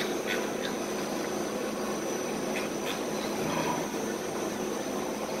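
Steady machine-like hum with an even hiss and a thin, constant high whine, a few faint clicks over it.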